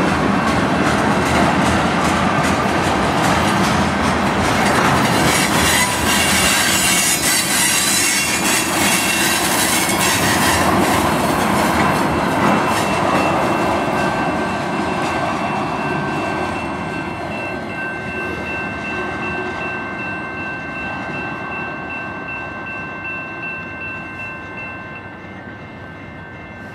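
Tank cars of a freight train rolling past on steel rails, with thin high wheel squeal over the rumble of the wheels. The sound stays loud for about half the time, then fades steadily as the end of the train pulls away.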